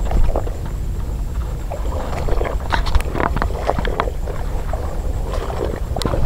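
Steady low wind rumble on the microphone, with irregular knocks, clicks and splashy rustles, thickest about two to three and a half seconds in.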